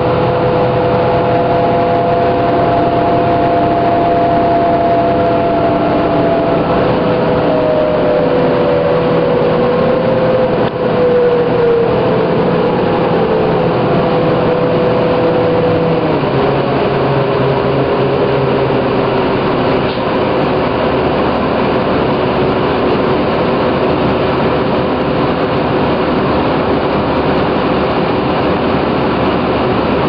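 Ride noise of a New Flyer D40LFR transit bus with a Cummins ISL diesel engine and Allison B400R six-speed automatic: steady engine and road noise, with whining tones that glide down in pitch from about seven to sixteen seconds in, then settle into a steadier, lower whine.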